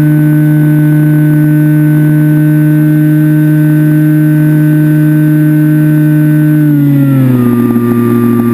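Electric motor and propeller of a Skywalker FPV plane, heard through the onboard camera's microphone, running at a steady high pitch in flight; about seven seconds in the pitch drops as the throttle is eased back, then holds at the lower note.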